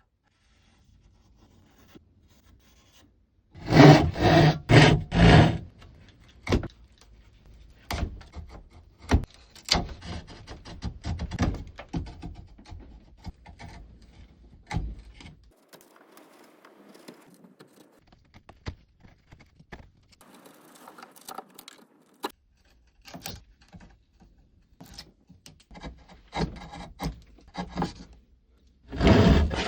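Hand tools working wood: a run of about four quick rasping strokes about four seconds in, then irregular scraping strokes and sharp knocks.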